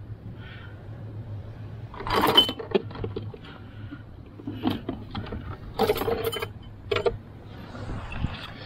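Clattering and clinking in four short bursts over a low steady hum, the loudest about two seconds in.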